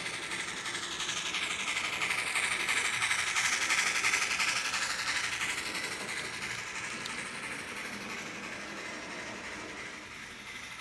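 Model steam locomotive and passenger cars rolling past on track, a steady whir of the motor and wheels on the rails that grows louder as the train nears, peaks about four seconds in, then fades as it moves away.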